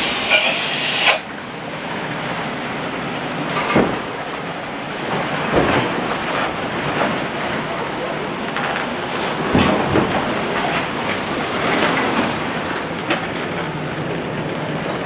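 Steady rush of wind and sea against a 40-foot Fountaine Pajot Lavezzi catamaran sailing into rough seas, heard from inside the saloon. A few dull thumps come at about 4, 6 and 10 seconds in.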